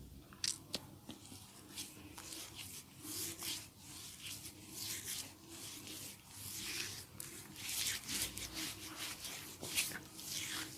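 Hands rubbing and stroking over facial skin during a face cleanup massage: an irregular run of soft, close swishing strokes.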